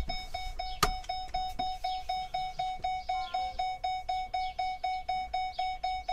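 Ford truck cab's warning chime dinging steadily, about three dings a second, with one sharp click about a second in.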